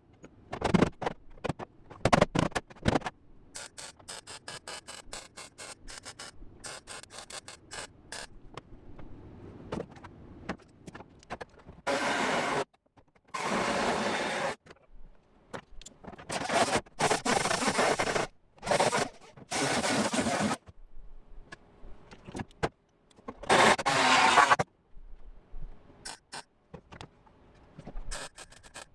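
Wire-feed (MIG) welder laying short stitch welds on thin sheet-metal floor patch, several separate buzzing, crackling bursts of about a second each, run at low heat and raised wire speed to bridge gaps without burning through the edge. Scattered short clicks and crackles come before the longer bursts.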